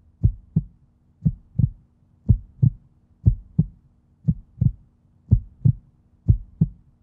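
A slow, steady heartbeat: paired lub-dub thumps about once a second, over a faint low hum.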